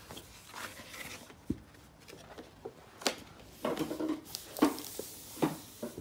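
Paper and cardboard being handled and pressed together: scattered soft knocks and rustles, with a few sharper clicks about one and a half, three and four and a half seconds in.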